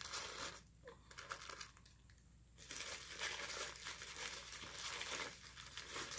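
Paper wrapper of a fast-food sandwich crinkling and rustling as it is handled and opened. It stops briefly about half a second in, starts again, pauses once more around two seconds in, then carries on.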